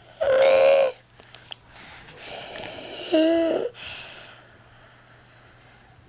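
Sleeping child's noisy, strained breathing with stridor: a short harsh breath with a steady whistling tone, then a longer harsh breath a couple of seconds later that ends in a pitched squeak.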